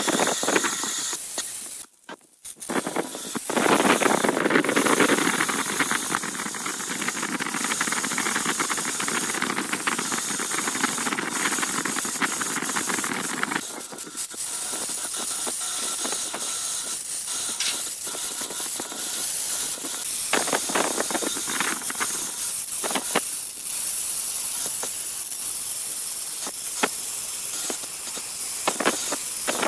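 Bandsaw cutting a curved line through a thick hardwood block: a steady hissing cut. It stops briefly near the start, is loudest for about ten seconds after that, then goes on lighter.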